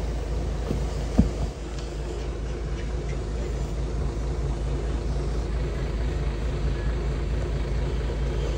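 A steady low mechanical drone, like a motor running, with a single sharp knock about a second in.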